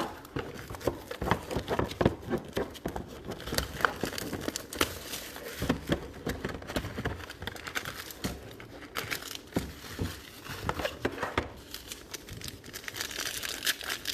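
Plastic wrapping crinkling and tearing, mixed with irregular clicks and taps of trading cards and packaging being handled; the crinkling is denser near the end.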